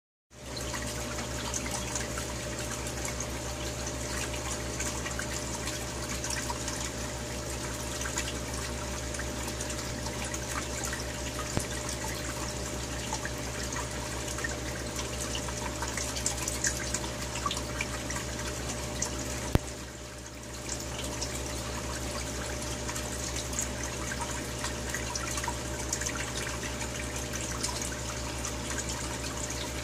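Aquarium air pumps and filter running in a heavily aerated goldfish tank: a steady wash of bubbling, splashing water over a low hum, with scattered small pops. It dips briefly about two-thirds of the way through.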